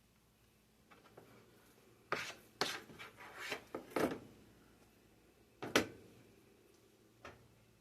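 Short rubbing and scraping sounds of food and kitchen things being handled: a quick cluster of about six strokes a couple of seconds in, then one sharper scrape and a last faint one.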